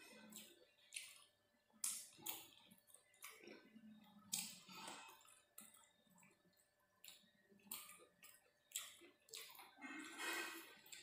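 Fingers mixing rice into chicken curry gravy on a steel plate: faint wet squishes with scattered light clicks, about a dozen spread irregularly, and a longer squelch about ten seconds in.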